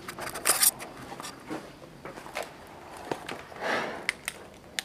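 Scattered footsteps and scuffs with a few sharp clicks, and a short rustle near the end.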